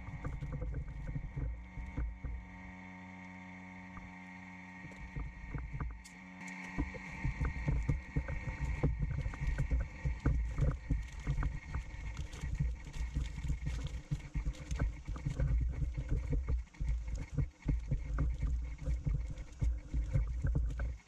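Electric vacuum pump running with a steady hum as it draws vacuum on a plastic vacuum bag for resin infusion. From about six seconds in, irregular crinkling and knocking of the bag film and tubing being pressed and handled takes over, with the pump still running underneath.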